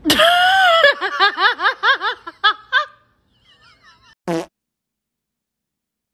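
A loud, high-pitched fart: one long squeal that breaks into a rapid sputter of short squeaks, about five a second, for about two seconds. One more brief blast comes about a second and a half later.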